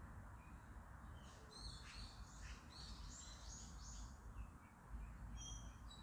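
Small birds chirping faintly: a run of quick, high notes from about a second and a half to four seconds in, then a few short whistled notes near the end. A steady low background hum runs underneath.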